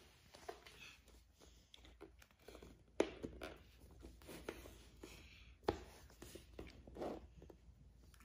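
Small cross-shaped plastic building pieces clicking and tapping as they are pressed together on a wooden floor, with two sharper clacks, one about three seconds in and one just before six seconds.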